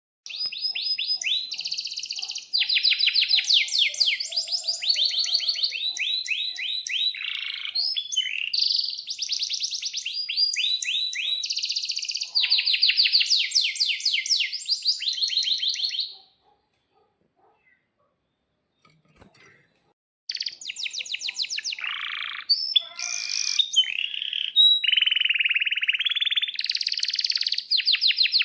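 Male canary singing a long song of fast rolls and trills. It breaks off for about four seconds midway, then starts again.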